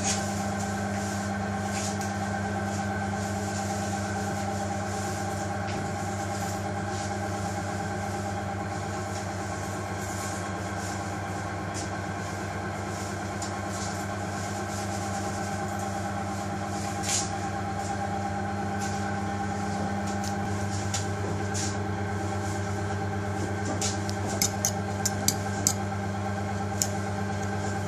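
A steady mechanical hum from kitchen machinery. Near the end, a metal fork clinks against a ceramic bowl several times as it stirs beaten egg with cheese and vegetables.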